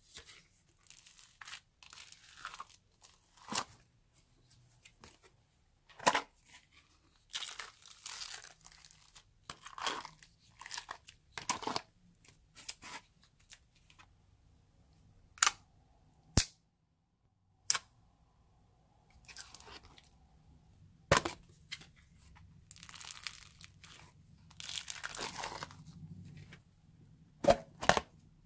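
Slime being handled and mixed with small foam beads: irregular crunching and crackling, with sharp clicks scattered through it.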